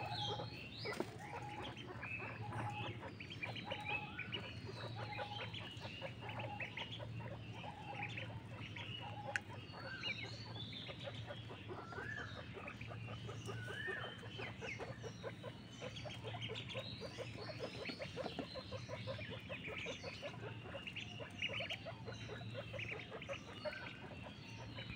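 A group of ducklings peeping continuously, many short high-pitched peeps overlapping, some with small upward glides.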